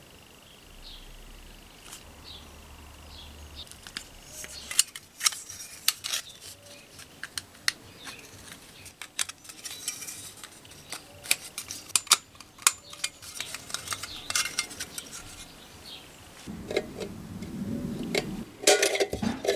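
Small metal parts being handled, clicking and clinking against each other in an irregular run of sharp taps, with a denser clatter near the end.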